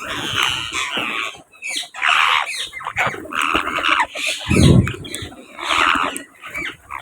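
A parrot squawking over and over in harsh, grating calls. A brief low rumble comes a little past the middle.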